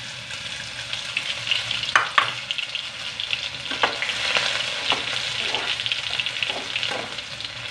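Chopped onions sizzling in hot oil in a kadai, with a steady hiss. A metal slotted spatula scrapes and knocks against the pan as they are stirred, with two sharp knocks about two seconds in and a few more later.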